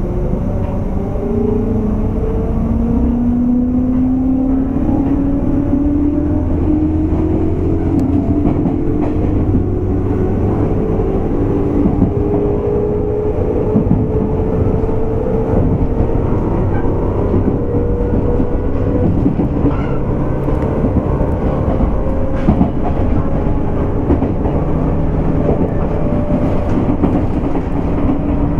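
Running sound of a JR West 201 series thyristor-chopper electric train heard from inside its motor car: the traction motor and gear whine climbs steadily in pitch as the train accelerates, over a heavy wheel rumble with occasional sharp clicks. Near the end the climbing whine gives way to a steady hum.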